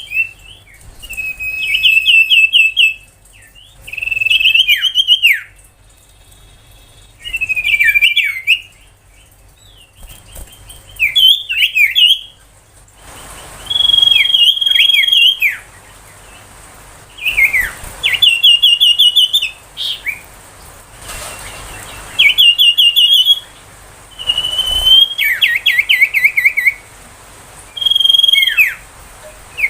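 Common iora singing: repeated short phrases of fast, rattling trills and sharply falling whistles, each a second or two long, with brief pauses between them.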